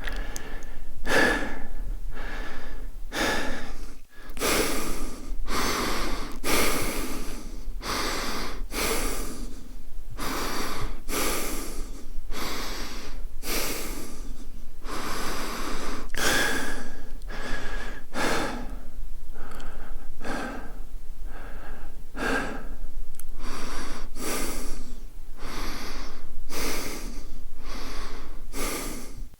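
A man breathing heavily and quickly, with one noisy rush of air in or out about every second and a brief break about four seconds in.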